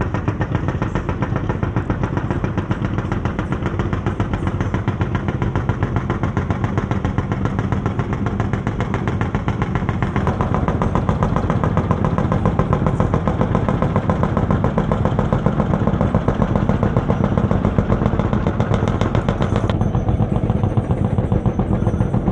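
Engine of a small traditional fishing boat running steadily as the boat passes, a fast, even pulsing that grows a little louder about halfway through.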